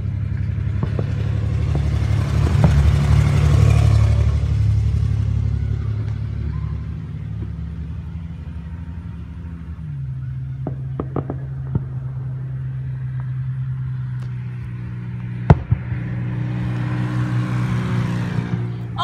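Cars passing on a street, the sound swelling and fading about three seconds in and again near the end, over a steady low hum. A few sharp pops from fireworks are heard, the loudest about fifteen seconds in.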